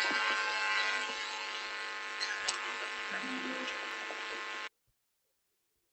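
Steady electrical buzz from the stage sound system with a hiss over it, cutting off abruptly a little before the end.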